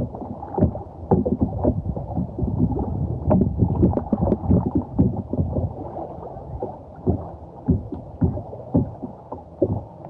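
Kayak being paddled: an irregular run of paddle splashes and knocks in the water, dull-sounding, with nothing much above the low and middle range.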